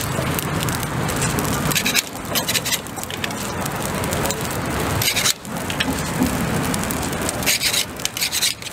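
Charcoal fire under a grill of salt-crusted tilapia, with two short scraping hisses, about halfway through and near the end, as tongs shift the fish on the grate.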